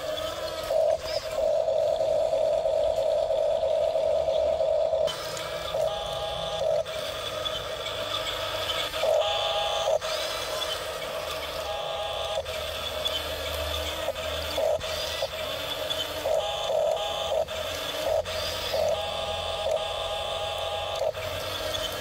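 A toy RC bulldozer's small electric drive motors and gearboxes whine steadily as its tracks push it into a pile of gravelly soil. The whine is louder for the first few seconds, then carries on with short higher blips as the motors start and stop.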